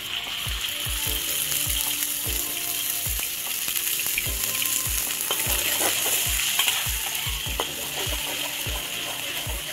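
Food sizzling as it fries in hot oil in a pan, the hiss starting suddenly at the outset, over a steady low beat of background music.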